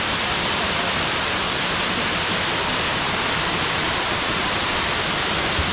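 Waterfall pouring, a loud steady rush of water with no breaks.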